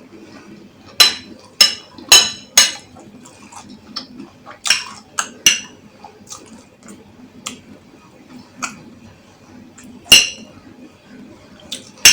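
Cutlery clinking and tapping against a dish while eating: about a dozen sharp, ringing taps at uneven intervals.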